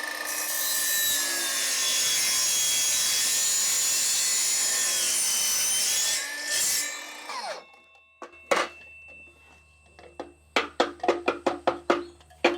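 Chop saw running and cutting through aluminium tubing, its motor winding down about seven seconds in. A music track with a sharp percussive beat comes in near the end.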